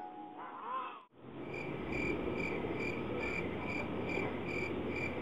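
Cricket chirping in a steady rhythm, about two chirps a second, over a low hiss. It starts after a brief dropout about a second in.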